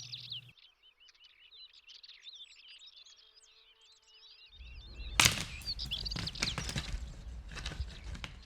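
Small birds chirping softly, then red deer stags squaring off: rough scuffling with a clatter of knocks, the loudest a single sharp crack about five seconds in.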